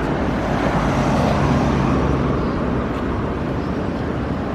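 Steady street traffic noise with a motor vehicle's engine running close by. A low engine hum stands out for a second or two.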